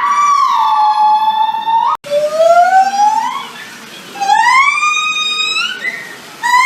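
Monkey calls: long, clear, whistle-like hoots. The first holds and then drops in pitch, and after a sudden cut about two seconds in, two calls rise steadily in pitch. Another call begins right at the end.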